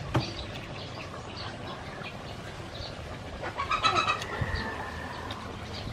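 Outdoor birds calling, with short high chirps throughout and a louder, longer call from about three and a half seconds in. A sharp click comes right at the start.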